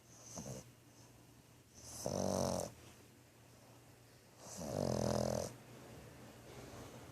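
French bulldog snoring in its sleep: a short, faint snore near the start, then two loud snores about two and a half seconds apart, each lasting most of a second.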